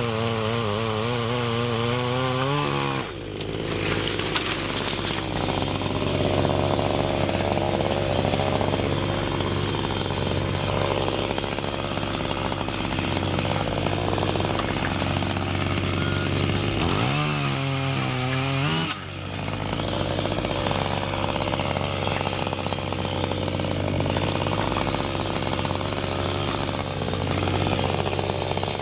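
Electric chainsaw cutting acacia (black locust) wood. The motor spins free with a steady whine for about three seconds, drops into a rough grinding as the chain bites, runs free again for about two seconds two-thirds of the way in, then bites into the wood again.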